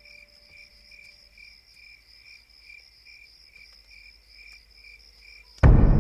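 Crickets chirping in an even, pulsing rhythm, two or three chirps a second. Near the end a sudden loud low hit cuts in and music starts, ringing on.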